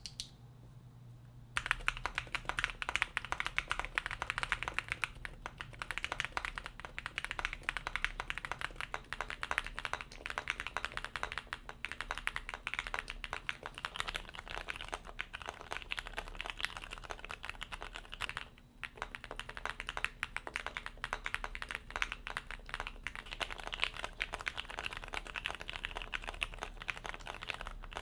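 Continuous typing on a Vicious40 40% mechanical keyboard with Jwick switches in an aluminium plate: rapid key clicks and clacks. The typing starts about a second and a half in and pauses briefly two-thirds of the way through.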